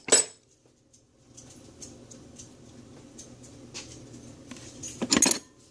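Metal hand tools being handled: wrenches clink sharply against each other just after the start, there are faint scraping and ticking handling sounds, and a second metal clatter comes about five seconds in.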